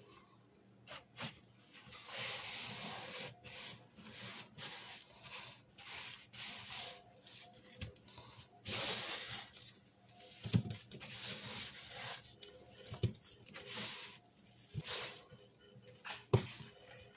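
Sponges squeezed and scrubbed by a rubber-gloved hand in damp cleaning powder: repeated gritty rubbing and squeezing strokes, each a second or less long, with a few short sharper knocks in the second half.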